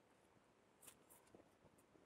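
Near silence, with a few faint short ticks about a second in.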